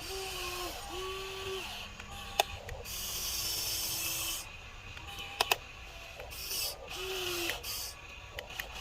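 Small electric gear motors of a Huina 1594 RC excavator whining in short runs, each a steady tone that starts and stops, with a few sharp plastic clicks and patches of hissing noise.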